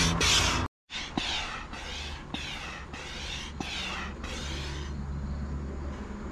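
Hand air pump inflating an inflatable tent's air beams: a regular series of short hissing strokes, about one and a half a second, that stop about five seconds in. A low steady rumble sits underneath.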